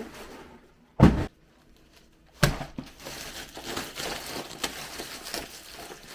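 Boxed LEGO sets being put down and handled: a loud thump about a second in, another knock about two and a half seconds in, then steady rustling and crinkling of packaging.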